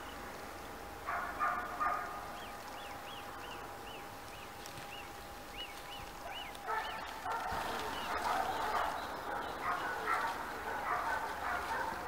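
Animal calls in the background: a short burst about a second in, a run of short high repeated notes, then a longer, louder stretch of calls from about seven seconds in. A faint steady tone runs under the first half.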